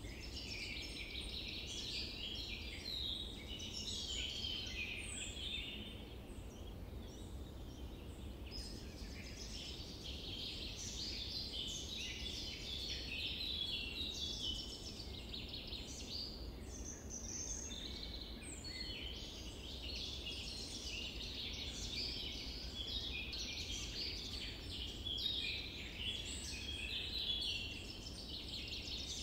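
A dense chorus of many small birds chirping and singing without pause, over a low steady rumble.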